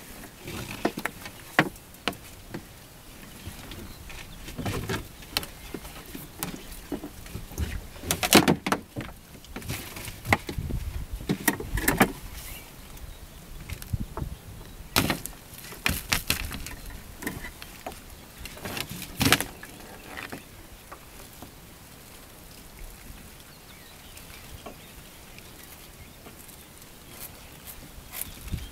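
Monofilament fyke net being hauled by hand over the side of a small boat: irregular knocks and clatter of the net hoops against the hull, with rustling of the wet netting. The handling sounds are busiest in the first twenty seconds and thin out after.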